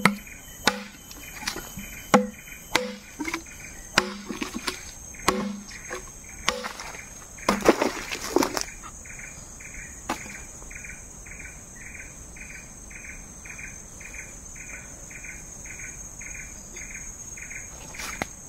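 A parang blade chopping into wood, about ten strikes at a steady pace of roughly one and a half a second, each with a short dull ring, then a louder, longer crunch about eight seconds in. After that, insects chirping in a regular pulse of about two a second over a steady high buzz.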